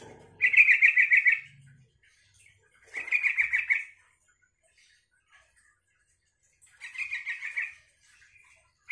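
Yellow-vented bulbul (trucukan) singing three short phrases, each a rapid run of about nine notes a second lasting about a second. The phrases come at the start, about three seconds in and about seven seconds in, and a fourth begins at the very end.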